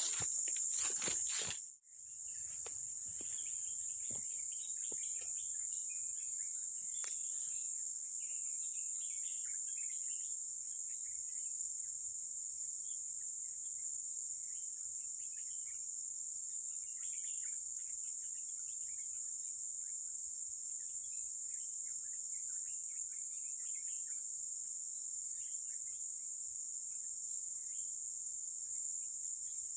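Steady high-pitched drone of an insect chorus, with faint scattered chirps beneath it. A few sharp clicks come in the first two seconds, before a brief dip in level.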